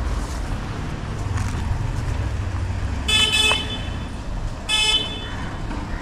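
Two short vehicle horn toots, the first about half a second long a little after three seconds in and the second shorter near five seconds, over a steady low rumble.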